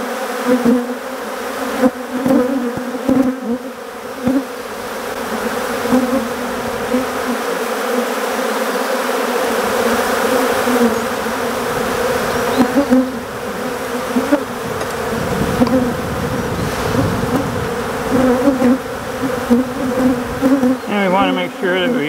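Loud, continuous buzzing of a large mass of Africanized honey bees swarming over an opened hive. The drone wavers as individual bees pass close by.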